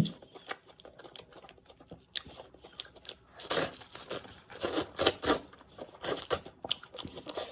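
A person chewing and crunching food close to the microphone in irregular bursts, as in mukbang eating.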